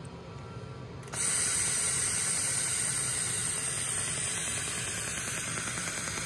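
Steady rushing hiss of air flow at a LaserStar laser welding station, cutting in abruptly about a second in.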